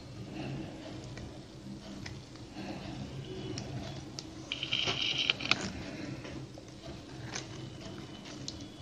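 Plastic basket-weaving wire rustling and scraping as it is threaded and pulled by hand through a woven plastic basket, with a louder crinkly rustle about halfway through, over a faint low hum.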